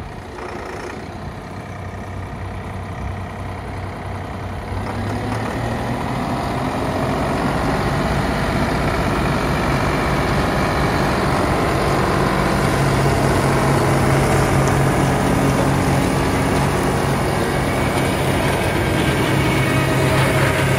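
Solis compact tractor's diesel engine running with its rear-mounted Wessex flail mower spinning as it mows grass. The steady hum grows louder over the first several seconds as the tractor draws near, then holds.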